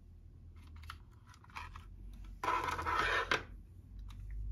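Clear plastic packaging being handled: small clicks and taps, then about a second of loud plastic crinkling and scraping about two and a half seconds in as the model coach is worked out of its case.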